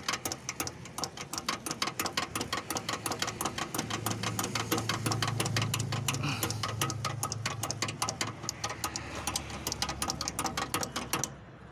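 Hand priming pump on the diesel filter of a Tata Indigo DICOR engine being pumped, a fast, even clicking of about four to six strokes a second, priming the new filter and pushing air out of the fuel line until the pump firms up. A low steady hum joins about four seconds in and fades out a few seconds later.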